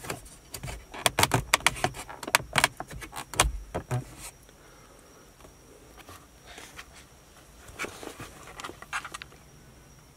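Plastic dash trim strip of a Lexus CT200h being pulled off by hand: a quick run of sharp clicks and snaps as its retaining clips pop free. A few softer clicks and plastic rattles follow near the end.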